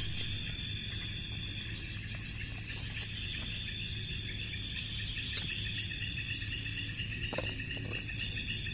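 Steady night chorus of crickets and other insects in tropical forest, several high-pitched shrilling bands with a pulsing beat, over a low hum. A single sharp click about five seconds in.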